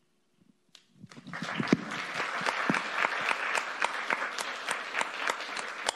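Audience applauding in a hall. The clapping starts about a second in, swells quickly and then holds steady.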